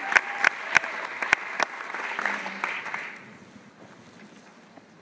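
Audience applauding, with sharp single claps close by in the first second and a half. The applause dies away about three seconds in.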